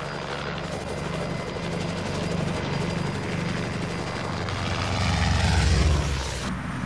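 Helicopter flying low past, its rotor beating steadily. It grows louder to a peak about five seconds in, then drops off abruptly near the end.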